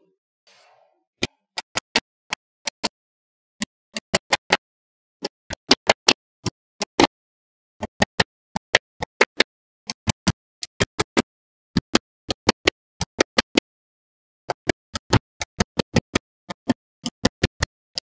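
Small magnetic balls and blocks built from them clicking sharply as they snap together, in quick runs of two to five clicks with short pauses between.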